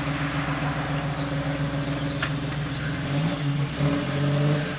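Trabant fitted with a Daewoo Tico three-cylinder engine on Suzuki Swift fuel injection, idling steadily, then picking up revs about three seconds in and holding a slightly faster idle.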